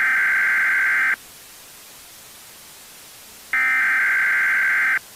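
Emergency Alert System alert tones: two loud, buzzy electronic bursts of about a second and a half each, separated by a pause of faint hiss.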